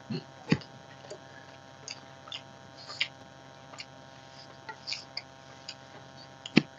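Quiet eating sounds: soft chewing and scattered small clicks of fingers mixing rice and curry on a steel plate, over a faint steady electrical hum, with one sharper click just before the end.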